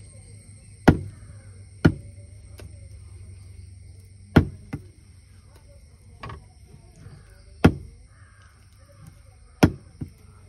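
A long knife chopping through fish onto a thick wooden block: five hard chops a second or two apart, some followed by a lighter tap.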